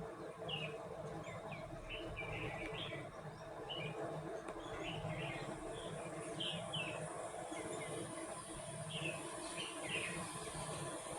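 Small birds chirp in short, irregular bursts over a steady low hum, likely the Daitoshi 56-inch ceiling fan running. A faint, steady high whine joins about halfway through.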